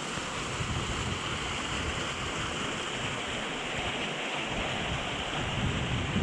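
Steady rush of flowing water from the gorge's creek and cascades, with wind buffeting the microphone in low, irregular rumbles.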